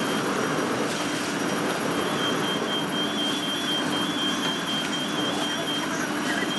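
Steady loud rushing roar of machinery with a steady hum under it, and a rapid high electronic beeping from about two to six seconds in.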